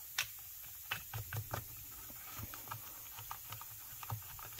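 Small metal clicks and taps of the bar nuts being threaded by hand onto the bar studs of a Stihl MS271 chainsaw, a quick cluster about a second in and sparser light ticks after.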